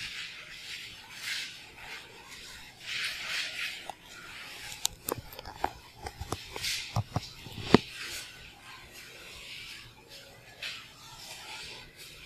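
A chalkboard duster rubbing across a blackboard in repeated swishing strokes, about one a second. A run of sharp knocks falls about halfway through.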